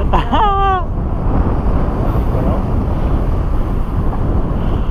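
Wind blowing over the microphone, a steady low noise, after a brief call of a voice in the first second.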